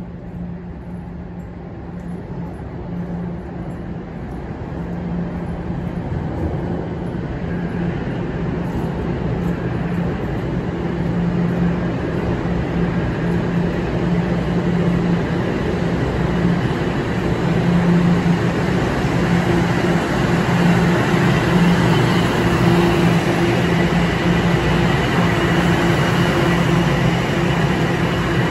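Toronto Rocket subway train approaching through the tunnel and pulling in along the platform, its rumble growing steadily louder as it nears. A steady low hum runs underneath, and a higher whine joins about two-thirds of the way through as the cars run past close by.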